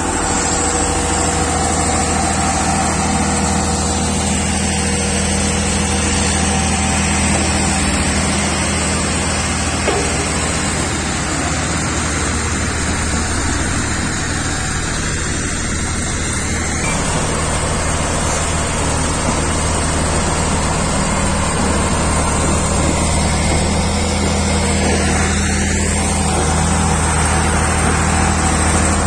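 Heavy diesel engines of road-building machines running steadily: a single-drum road roller, then a Caterpillar 120K motor grader working the ground.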